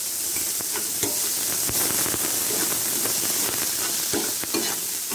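Chopped tomatoes and onions sizzling in hot oil in a nonstick pan, with a steel spatula stirring them and scraping and clicking against the pan now and then. The tomatoes have just gone in and are frying down to soften.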